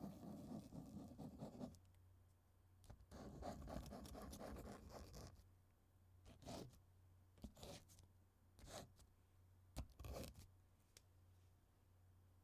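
Pen writing on paper: two longer stretches of scratchy writing, then a few short separate strokes about a second apart.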